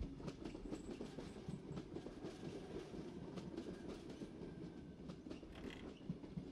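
Suburban passenger train pulling into the platform: a steady low rumble with many small clicks.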